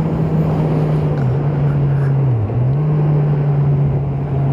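Suzuki GSX650F's 656 cc inline-four engine running at steady cruising speed under wind and road noise. Its pitch dips briefly about halfway through and comes back up as the throttle is eased and reopened.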